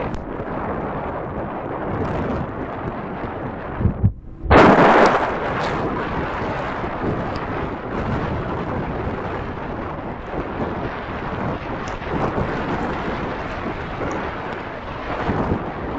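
Typhoon wind and heavy rain buffeting the microphone as a steady noise. A little after four seconds in the sound drops out almost completely for a moment, then a loud burst of wind noise comes in.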